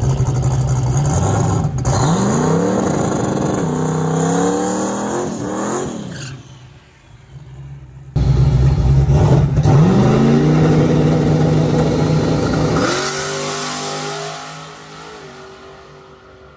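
Turbocharged LSX V8 of a drag-race Mustang revving hard in rising sweeps, twice, with a short drop between them about six seconds in. In the second stretch the note steadies and fades as the car pulls away down the track.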